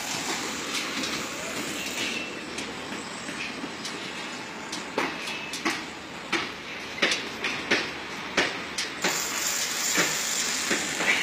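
Building-site noise: a steady din with irregular sharp knocks, as of metal or hammer blows, coming more often and louder from about halfway through.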